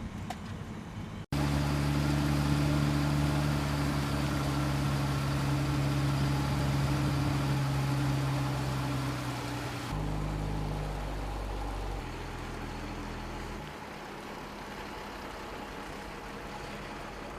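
A motor vehicle's engine running steadily with a low hum. The sound cuts out briefly a little past a second in, then jumps abruptly in level and pitch around ten, twelve and fourteen seconds.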